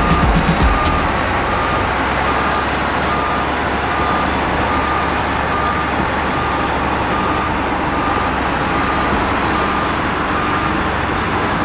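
Diesel engine of a heavy road-construction machine running steadily, with its reversing alarm beeping about twice a second.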